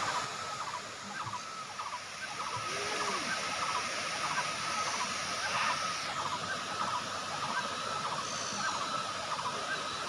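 A multi-tiered waterfall spilling over rock ledges into a pool: a steady rush of falling water, with a high chirping call repeating over it about once or twice a second.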